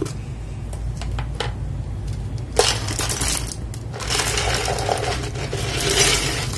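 Loose Kailh Box Brown mechanical keyboard switches clattering as they are handled: a few light clicks, then two spells of rattling, the first about two and a half seconds in and a longer one from about four seconds in.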